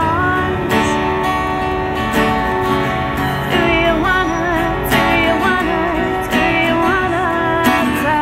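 A woman singing a folk-pop song to her own strummed acoustic guitar, the voice wavering in vibrato on held notes.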